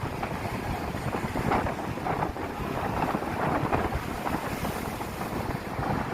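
Sea waves surging and breaking against coastal rocks, a continuous rushing wash that swells and eases, with wind buffeting the microphone.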